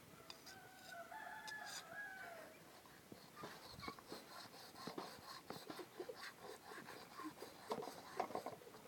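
A rooster crows once, a call of about two seconds at the start, followed by a run of irregular short clicks and scrapes.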